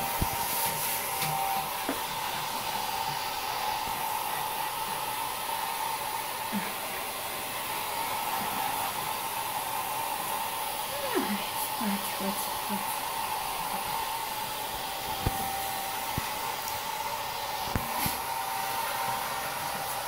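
Hand-held electric hair dryer running steadily close to a wet dog's coat: an even rush of air with a steady motor whine.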